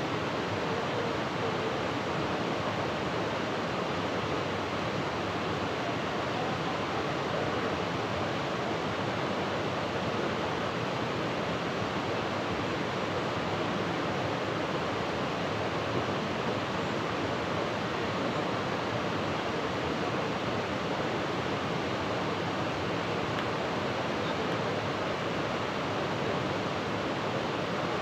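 Steady, unbroken rushing of water, an even wash of noise with no let-up.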